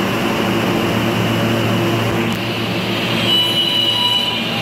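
An R160B subway train with Siemens propulsion hums steadily as it stands at the platform. About three seconds in, high whining tones come in as it starts to pull out.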